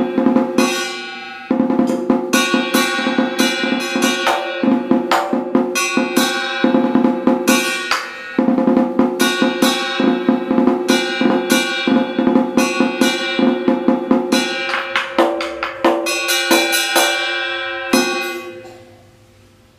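Vietnamese trống chiến (battle drum) played with two wooden sticks: fast, dense rolls and strokes on the hide head, with the head's ringing tone under them. The playing stops on one hard stroke about 18 s in that rings out and fades.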